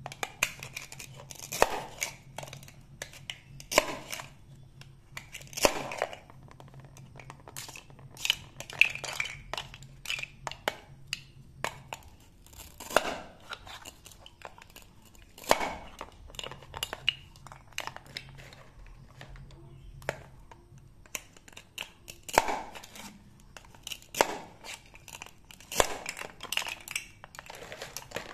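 Toy velcro fruit being cut with a plastic toy knife: short ripping sounds as the velcro-joined halves pull apart, about every two seconds, with light plastic clicks and taps of the knife and pieces between.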